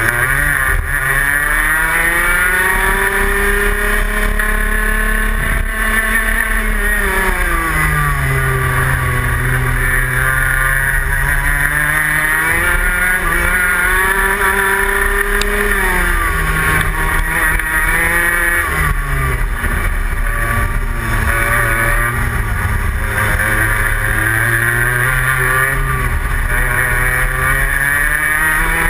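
Rotax Max Senior 125cc two-stroke single-cylinder kart engine at racing speed, heard from on board: the revs climb on the straights and drop sharply under braking into corners, several times over.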